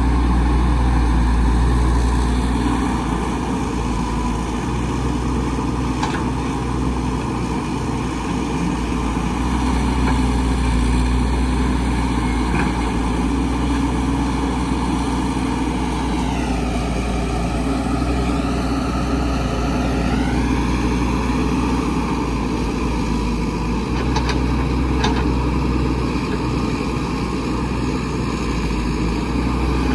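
Heavy diesel engine of construction machinery running steadily. Past the middle its pitch sags for a few seconds, as if under load, then climbs back. A few faint clicks or knocks are heard along the way.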